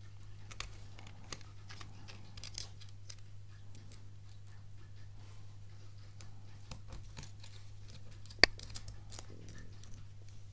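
Small clicks and light scrapes of hands handling the metal and rubber parts of a rugged phone case and its tiny screws during reassembly, with one sharper click about eight seconds in. A steady low hum runs underneath.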